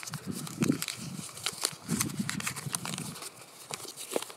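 A folded sheet of paper crinkling as it is unfolded by hand: a run of many small, sharp crackles.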